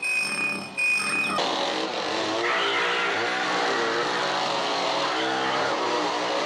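Chainsaw running and revving in a film soundtrack. It comes in suddenly about a second and a half in, after a steady high tone cuts off, and then runs loud and continuous with a wavering pitch.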